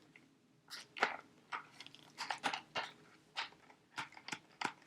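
Product packaging being handled and opened by hand: a dozen or so short, irregular crackles and clicks.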